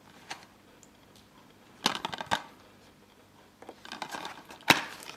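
Plastic Blu-ray case and disc being handled: a few sharp plastic clicks and light rustling, with the loudest click near the end.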